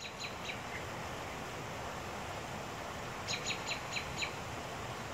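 Steady rush of a swollen, fast-flowing creek. A songbird cuts through it twice with a quick run of sharp chirps, about five a second: briefly at the start and again for about a second in the middle.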